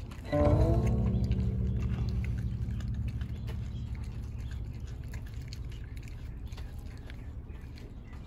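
A dog gnawing and chewing on a raw meaty bone. Under it, a low droning hum comes in suddenly just after the start, with a brief gliding tone, and slowly fades.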